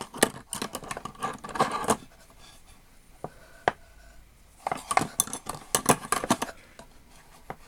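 Small metal measuring tools clinking and clicking against each other as they are handled in a tool drawer. Clusters of clicks come in the first two seconds and again about five seconds in, with a quieter gap between.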